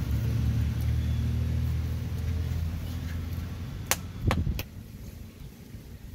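A low, steady mechanical hum for the first four and a half seconds, then a couple of sharp metal knocks about four seconds in as a large metal saucepan is brought down against a cooking pot on a firewood fire.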